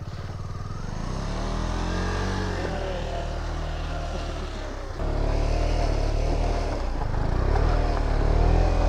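KTM Duke 250 single-cylinder engine revving hard, over and over, as the bike is pushed and ridden out of deep snow. The revs rise and fall, sag about four and a half seconds in, then jump back up louder at about five seconds.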